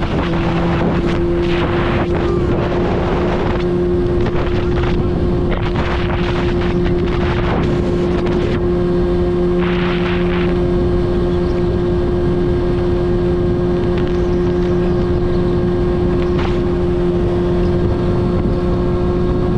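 In-line four-cylinder engine running at a steady, unchanging pitch, with gusts of wind noise on the microphone coming and going.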